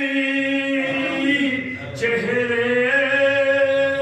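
A man's voice chanting verse, with long held notes. There is a short break about two seconds in, before the next held note.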